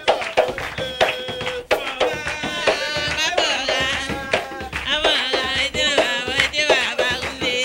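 Live West African-style music: a hand drum beaten by hand in a quick, steady rhythm, with singing joining over it about two and a half seconds in, the voice wavering with a strong vibrato.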